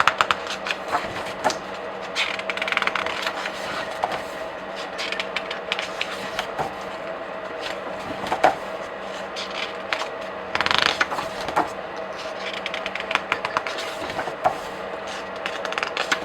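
Pages of comic books and graphic novels being flipped by hand: paper rustling and snapping in short irregular bursts, with clusters of quick flips about two and a half, five, ten and a half, and thirteen seconds in.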